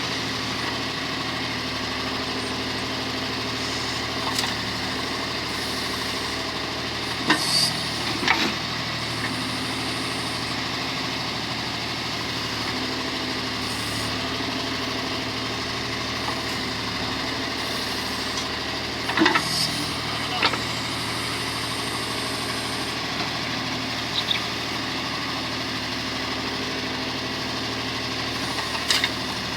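John Deere 5310 tractor's diesel engine running steadily while it works a backhoe. A few sharp clanks come through, in pairs about seven and nineteen seconds in and once more near the end.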